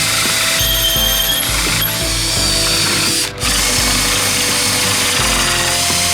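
A power tool running continuously over background music, briefly cut off about three seconds in.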